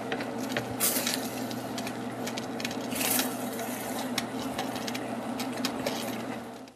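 Spatula stirring pieces of soy protein and Chinese broccoli in sauce in an enamelled pot: wet squishing and scraping, with sharper scrapes about one and three seconds in, over a steady low hum.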